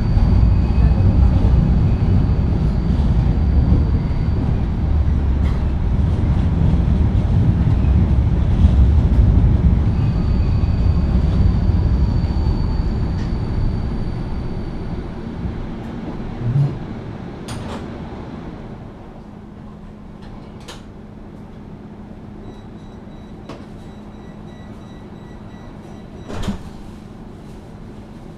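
Vienna tram heard from inside the passenger car: a loud running rumble that fades as the tram slows to a stop about two-thirds of the way in, then a steady low hum while it stands, with a thump and a few sharp clicks.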